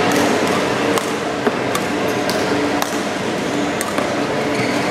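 Badminton rackets striking shuttlecocks in a training drill: a series of sharp, light hits, about seven, at irregular half-second to one-second gaps, over the steady background noise of the hall.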